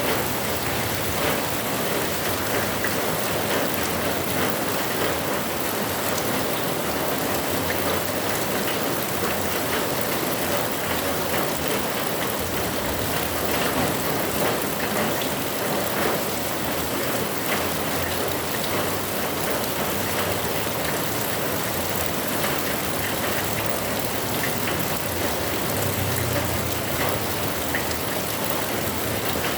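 Heavy rain falling steadily: a dense, even hiss of rain with many small drop taps.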